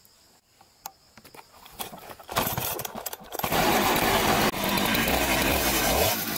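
A two-stroke chainsaw starts up about two and a half seconds in, sputtering briefly before it catches, then runs loud and steady at high speed.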